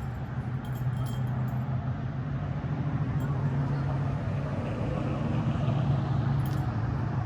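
Motor vehicle running with a steady low hum over rushing road noise, growing slightly louder toward the end.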